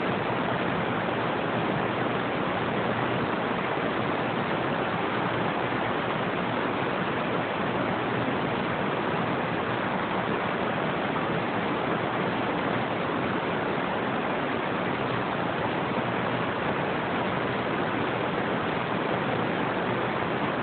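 Steady static hiss from a CB radio receiver on an open channel, with no station coming through.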